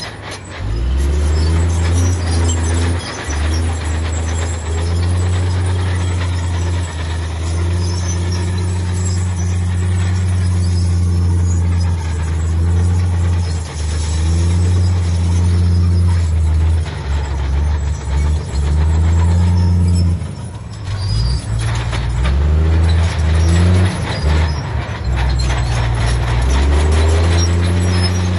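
Heavy diesel earthmoving machinery running under load: a deep engine drone that rises and dips as the machine works, with bursts of metallic clattering in the last third.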